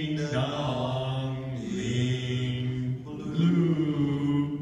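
A cappella doo-wop singing by male voices: a slow, low part sung as three long held notes, each lasting over a second.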